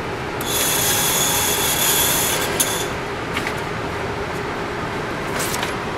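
Electric target retriever at a shooting range running the paper target back along its overhead track: a high, steady whining squeal for about two and a half seconds, with a shorter squeal near the end, over the constant rush of the range's ventilation.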